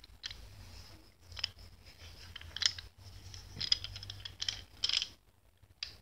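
Faint irregular clicks and light scraping, a few small sharp ticks a second apart, over a low steady hum.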